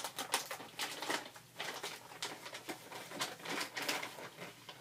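Packaging rustling and crackling in a run of irregular crinkles and clicks as a mailed package is opened by hand.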